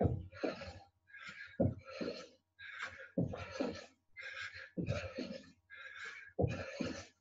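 Heavy, rhythmic panting of a person mid-workout, a breath about every second. Dull thuds recur about every one and a half seconds, in time with the jumps of squat jacks.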